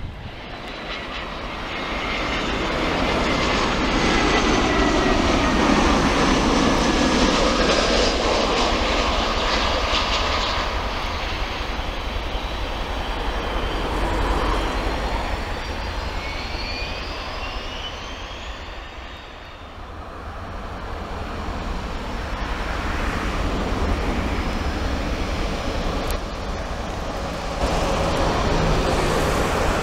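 Airliner turbofan engines at close range on a runway: an Airbus A320's CFM56 engines roar past on the landing run with a falling whine. A rising whine follows midway, and near the end a Boeing 737-800's engines come in louder.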